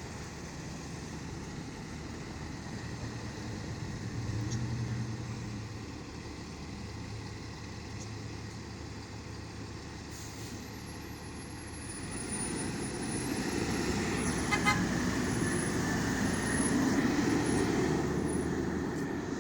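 Road traffic with vehicle engines running as a steady low rumble that swells briefly, then grows louder from about two-thirds of the way in as a vehicle comes close, with a sharp click partway through.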